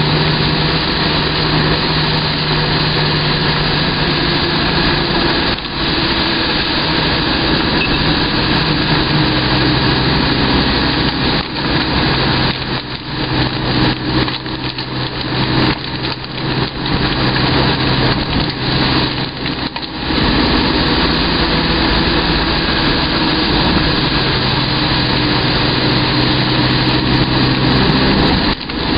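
A vehicle engine runs under a steady rush of wind and wet-road noise while driving in the rain. The engine note drops about nine seconds in and rises again near the end, and the noise turns choppy and a little quieter in the middle.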